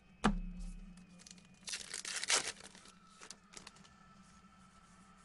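A sharp thump on the table, then a trading-card pack's foil wrapper torn open with a short burst of crinkling about two seconds in, followed by a couple of light clicks as cards are handled.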